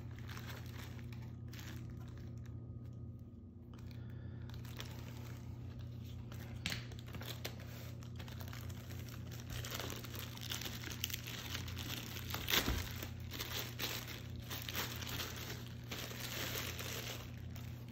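Clear plastic packaging bag crinkling and rustling as hands handle and work a boxed GoPro Hero 10 Black out of it. The crinkling is sparse at first and grows busier in the second half, with one sharp crackle about two-thirds of the way in, over a steady low hum.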